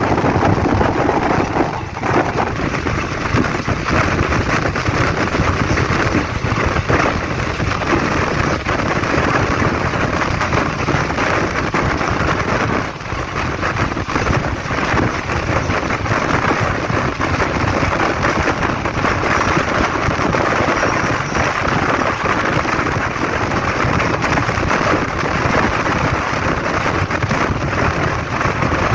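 Steady rumble and hiss of a passenger train running on the line, heard from aboard a coach.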